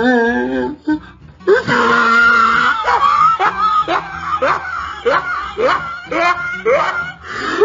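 A voice screaming: a held cry at the start, then a run of short rising cries about two a second.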